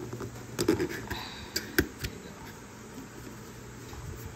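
Cardboard toy box and its clear plastic window being handled and pulled apart: a few quick clicks and scrapes in the first two seconds, then a quieter stretch over a faint steady low hum.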